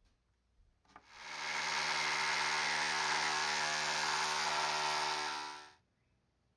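Small power tool cutting plastic mounting bosses off a fan shroud: a steady motor note that spins up about a second in and stops near the end.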